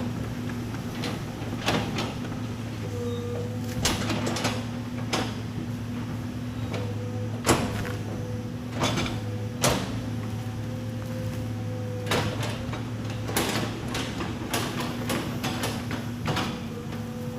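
Excavator engine running steadily with a low hum, while logs knock and clunk sharply about a dozen times as they are handled and stacked, with a quick run of knocks near the end.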